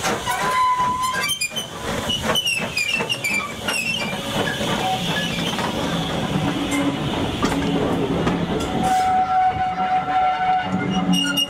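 LMS 'Jinty' 0-6-0 tank engine 47406 and its coaches rolling slowly past at close range, the wheels clattering over the rail joints with a steady rumble and a few brief high squealing tones.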